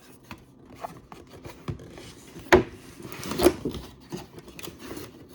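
Cardboard action-figure box being opened and handled: rubbing and scraping of the packaging with a few sharp clicks, the loudest about two and a half seconds in.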